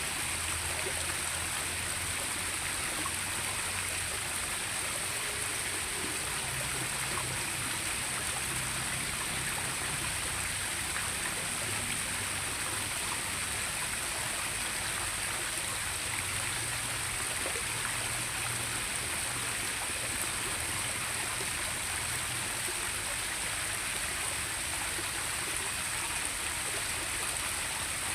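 Steady rushing of running water, an unbroken even noise with a constant high-pitched hiss above it.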